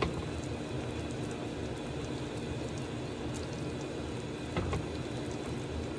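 Pot of bitter melon soup simmering on the stove: a steady low bubbling hiss, with a short click right at the start and a soft knock about four and a half seconds in.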